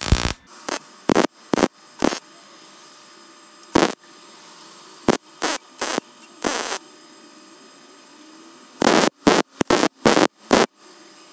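MIG welder laying short tack welds on steel mounting tabs, about fifteen brief crackling stretches with pauses between. The longest comes a little past the middle. The welds fill a slight gap between a tab and the square-tubing bracket.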